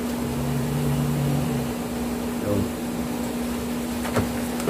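Steady machine hum with one constant low tone underneath, and a couple of faint knocks near the end.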